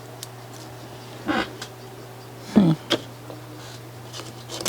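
Two short vocal sounds, each falling in pitch, about a second and two and a half seconds in, over a steady low hum with a few faint clicks.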